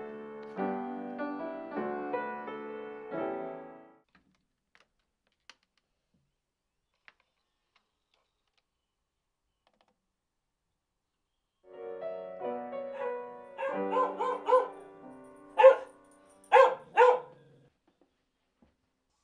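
Upright piano played in short halting phrases. It breaks off after about four seconds and starts again some eight seconds later. Near the end, over the last notes, a dog barks three times, loud and sharp.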